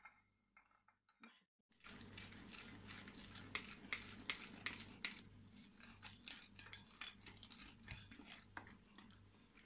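Wire whisk stirring flour into cake batter in a glass bowl, its wires clicking and scraping against the glass in quick, irregular strokes that start about two seconds in.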